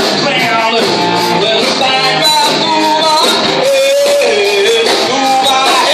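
A rock covers band playing a song live, with a singer's voice carrying the melody over the band.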